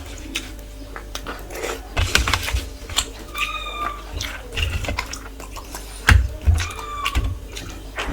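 Close-up eating sounds: chewing with wet mouth smacks and clicks while rice and curry are eaten by hand. Two short, high, steady tones break in, about three and a half and seven seconds in.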